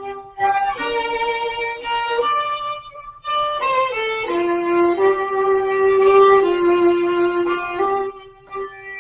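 Violin playing a slow melody of long held notes, with short breaks between phrases.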